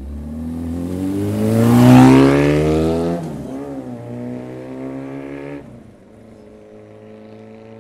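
A motorcycle accelerates past and pulls away. Its engine note rises to its loudest about two seconds in, breaks and climbs again around three seconds as it shifts gear, then fades sharply a little before six seconds.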